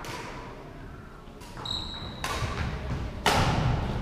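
Badminton rally: rackets strike the shuttlecock with sharp cracks that echo in the hall, three hits in the second half, with a brief squeak of court shoes on the wooden floor after the first.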